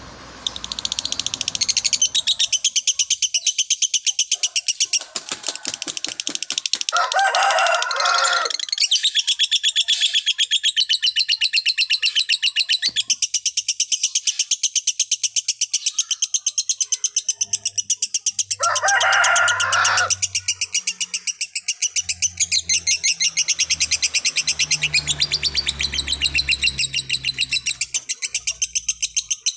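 Lovebird singing a long, very fast, unbroken chattering trill, the 'konslet' style of lovebird song. Two short, lower calls break in, about a quarter of the way through and again just past the middle.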